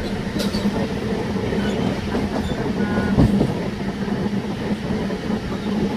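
MEMU electric local train running, with a steady motor hum over the rumble and clatter of wheels on the track, and a single knock about three seconds in.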